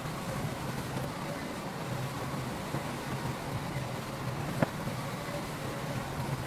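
Heavy diesel earthmoving machinery running steadily, a low engine drone with one sharp knock about four and a half seconds in.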